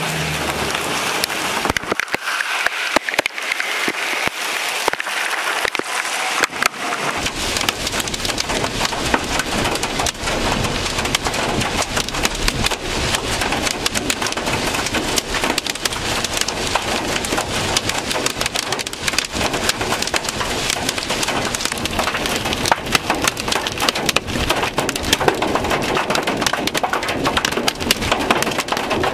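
Heavy rain mixed with hail pelting down without a break, with many sharp ticks and clicks of hailstones striking hard surfaces. A low rumble joins in about seven seconds in.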